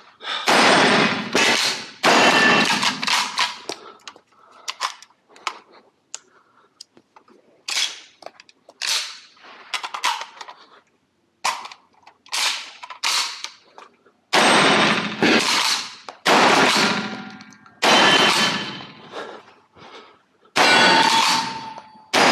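A series of shotgun shots fired one after another, each a sharp report with a short echoing tail. Two loud shots come near the start, a run of fainter shots follows through the middle, and loud shots resume every second and a half to two seconds in the last third.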